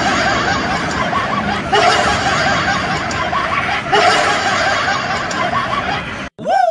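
High-pitched giggling laughter: a quick, unbroken string of short 'ha' sounds that cuts off abruptly shortly before the end.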